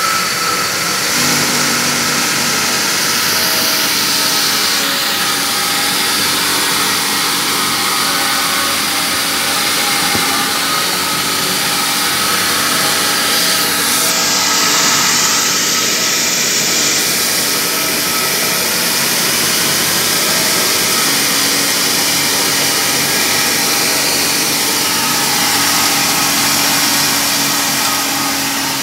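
6N70 mini rice mill running steadily under load, driven by its electric motor, with a dense hiss of rice grains pouring down the outlet chute.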